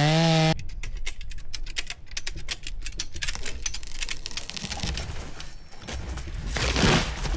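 A chainsaw stops about half a second in, followed by a long run of irregular crackling and snapping clicks, with a louder rushing swell near the end, typical of wood fibres breaking as a felled tree tips over.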